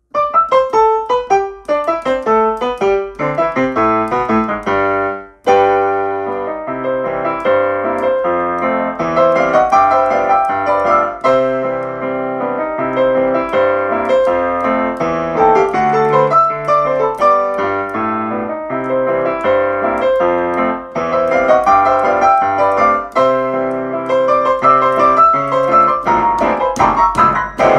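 Electric piano played with both hands: a continuous run of notes and chords, with a brief pause about five seconds in.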